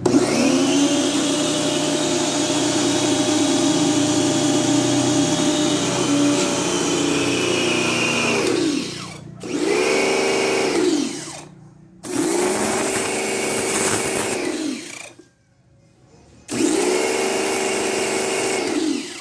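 Bosch Aquatak electric pressure washer's motor and pump running while the long lance sprays water onto concrete. It runs for about nine seconds, then starts and stops three more times in shorter bursts, winding up each time the trigger is squeezed and winding down each time it is let go.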